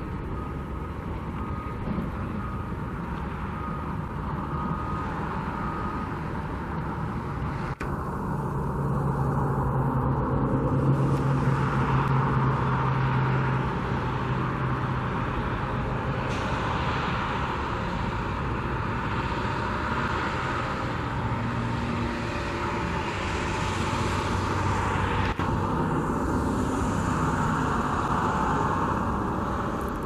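Heavy diesel engines running at a construction site, over a steady background hiss. The engine sound swells twice. A faint beep repeats about once a second for the first several seconds.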